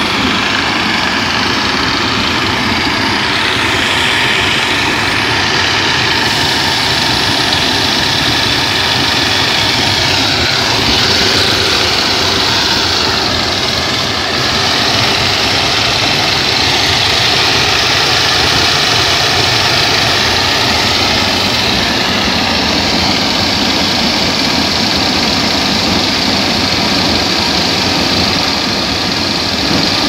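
Home-made waste-oil furnace running at full fire: a steady roar of the forced-air burner flame and its electric air blower.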